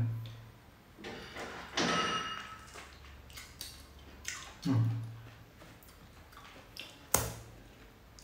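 Sounds of a man eating a whole pineapple by hand: a few short, separate sounds of chewing and handling the fruit.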